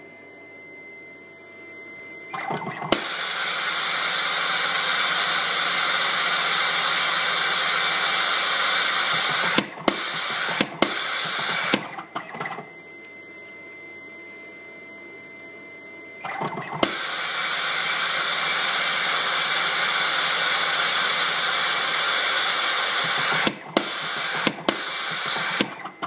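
Komax Cosmic 42R automatic coaxial cable stripping machine running two stripping cycles. Each time it starts up and runs with a steady whirring hiss for about seven seconds, then stutters through a few short stops and restarts before going quiet.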